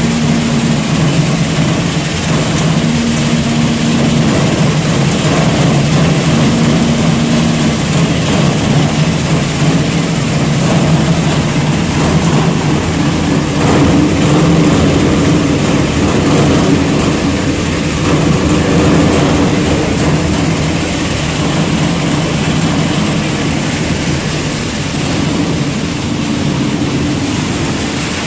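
Bano Premac 22-70 Hydro single-shaft shredder running while it shreds copper transformer coils: a loud, steady machine drone with a low hum. A slightly higher tone comes and goes for about a second every three seconds at first, then a higher tone holds from about halfway through.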